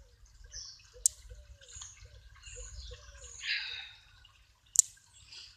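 Rain dripping: a string of irregular water-drop plinks, with two sharp taps, one about a second in and one near the end.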